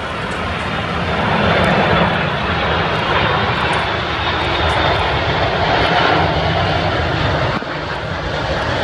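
Jet airliner passing close on landing, its engine rush swelling over the first couple of seconds and staying loud, with a faint high whine.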